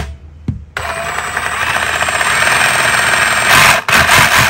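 Milwaukee M18 FUEL Sawzall brushless cordless reciprocating saw running free without cutting. The trigger is squeezed about a second in and the motor speeds up to a steady whir; it cuts out briefly near the end and starts again.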